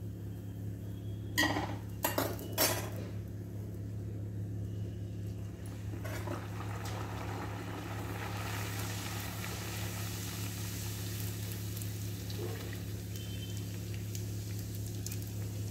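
A few sharp clinks of a metal utensil against the kadhai, then puris deep-frying in very hot oil, sizzling steadily from about six seconds in.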